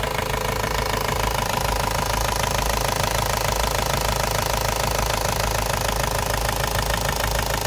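Ford Focus Mk1 1.8 TDDi four-cylinder turbodiesel engine idling steadily with a rapid, even diesel clatter and a steady high whine.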